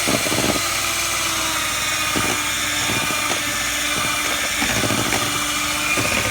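Electric hand mixer running steadily in a bowl of batter, with a few irregular knocks of the beaters against the bowl.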